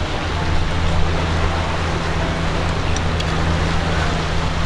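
Steady wind and sea noise, with a low, steady hum underneath.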